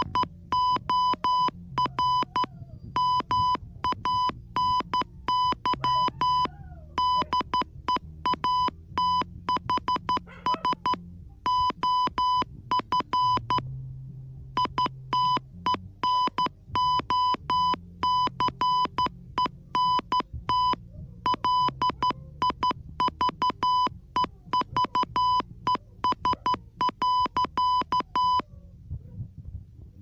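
Morse code beeps from a phone's Morse translator app: a single steady electronic tone keyed on and off in dots and dashes, spelling out a typed text message letter by letter. The beeps stop near the end. Quiet background music with low synth or piano notes plays underneath.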